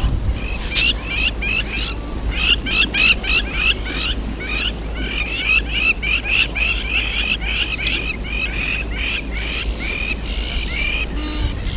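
A flock of white-faced whistling ducks calling: many short, clear whistles, several a second and overlapping, with a steady low rumble underneath.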